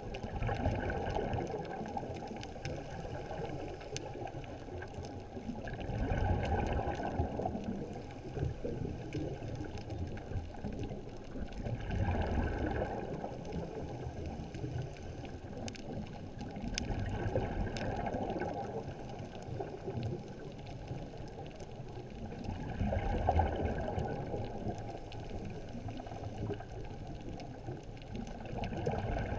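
Muffled underwater water noise heard through a camera housing: a low rush that swells and fades about every six seconds, with a few faint scattered clicks.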